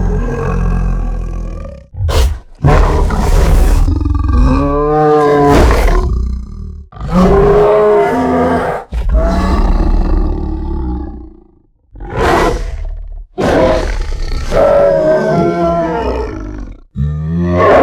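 Designed monster sound effect of the Beast of Gévaudan: a run of deep, loud beast roars and growls, about eight calls one after another with short breaks between them, their pitch sliding up and down within each call.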